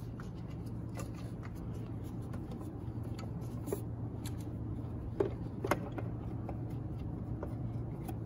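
Scattered light clicks and taps from hands working parts in a car's engine bay while fitting an oil filter, the sharpest a few about three and a half to six seconds in, over a steady low hum.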